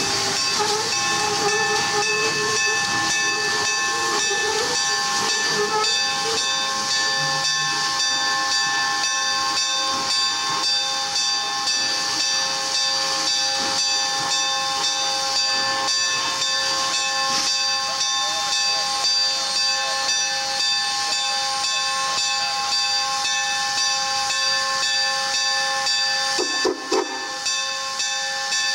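Steam locomotive letting off steam: a loud, steady hiss with several steady whistling tones in it. It dips briefly about two seconds before the end.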